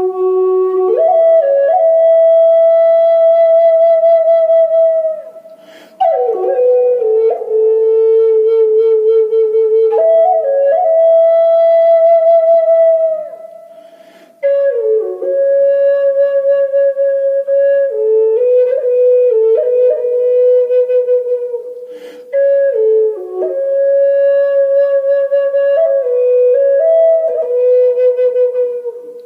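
Native American flute playing a slow solo melody of long held notes that slide into one another. It comes in four phrases with short pauses between them.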